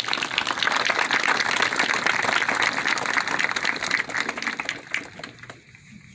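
Large crowd applauding, a dense patter of many hands clapping that swells quickly at the start and dies away about five seconds in.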